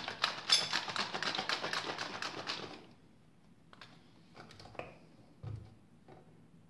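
Sealed plastic blender cup holding fruit chunks and juice being shaken by hand: a rapid rattling that stops about three seconds in. A few light clicks and a dull knock follow as the cup is handled and fitted onto the blender base.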